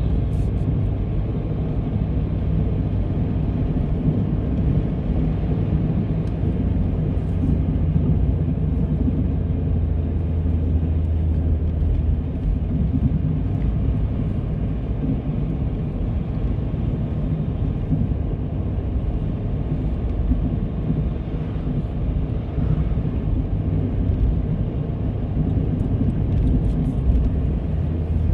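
Car driving at steady speed: a constant low rumble of road and engine noise.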